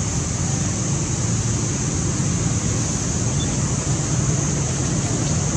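Steady outdoor background noise: wind rumbling on the microphone, with a constant high hiss over it.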